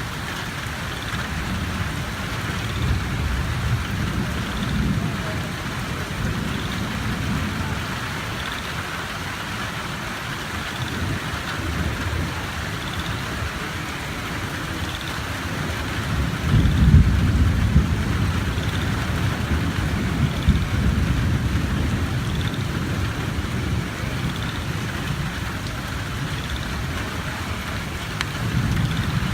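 Heavy rain falling steadily, with low rolls of thunder through it; the loudest rumble comes about 17 seconds in.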